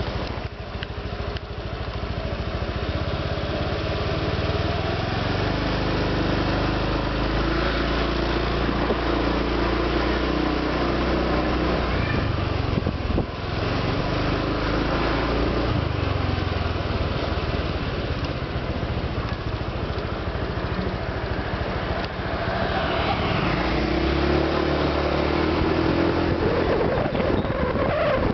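Honda Vario 125 PGM-FI scooter engine running under way, fitted with a larger-diameter stainless-steel muffler neck. The throttle eases off and opens again about 13 and 22 seconds in. The owner believes its "snore" has been eliminated.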